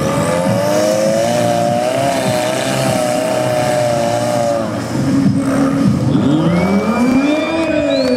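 Rock crawler buggy's engine revving hard, held at high revs with a wavering pitch as the buggy claws up a steep slope of loose rock. About five seconds in the revs drop, then swing up and back down again.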